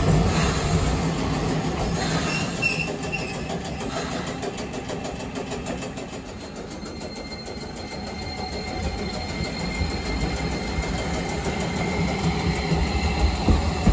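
Keifuku Mobo 2001 tram, a Toyo Denki IGBT-VVVF car, running slowly past at low speed with a steady rumble of wheels on rail. Three short high beeps sound about two to three seconds in. A faint steady high whine runs through the second half as the rumble grows louder again toward the end.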